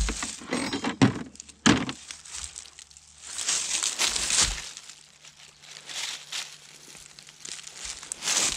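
Dry fallen leaves crunching and rustling under boots and hands in irregular bursts, the sharpest in the first two seconds.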